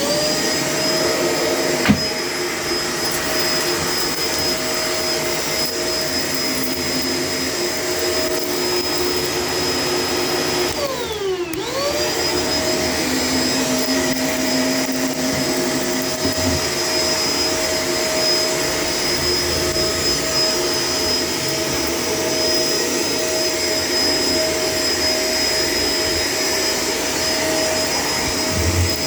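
Shark LA702 Lift-Away vacuum cleaner spinning up and then running with a steady high whine, while vacuuming stairs. About eleven seconds in, its motor pitch drops sharply and climbs back up within about a second. One sharp knock comes about two seconds in.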